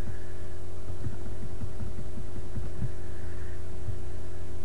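Steady low electrical hum with several steady overtones, with a few short faint soft knocks scattered through it.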